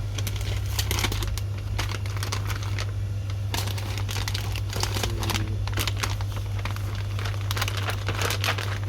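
Plastic bag crinkling and rustling in irregular bursts as snacks are handled and bagged, over a steady low hum.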